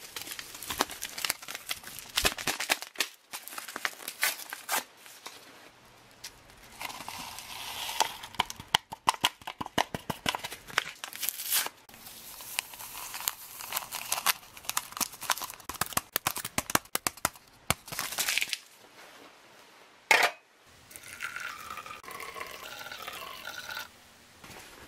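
A foil-lined instant coffee packet crinkling and being torn open, with many sharp crackles and rustles, and the granules shaken out into a small glass. Near the end, hot water is poured into the glass to make the coffee.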